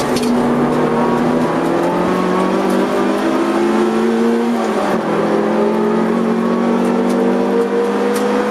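Honda CR-X EE8's 1.6-litre VTEC four-cylinder engine heard from inside the cabin, revving up under hard acceleration on track. About five seconds in the engine note drops briefly, then runs on and climbs again.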